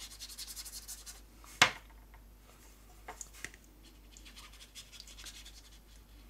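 Bristles of a water-tank brush rubbing over damp cardstock, at first in quick back-and-forth scrubbing strokes and then in fainter, sparser dabs. A single sharp click about one and a half seconds in is the loudest sound.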